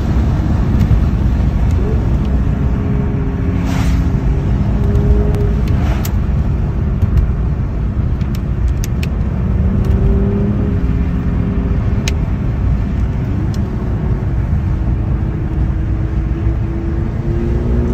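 Car engine and wet-road tyre noise heard from inside a car's cabin at highway speed, with a steady low rumble and an engine note that rises and falls as the revs change through the bends. A few sharp clicks stand out about 4, 6 and 12 seconds in.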